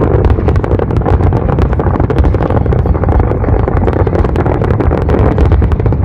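Aerial fireworks barrage: a dense, rapid crackle of many small pops over a steady low rumble of shell bursts, loud throughout.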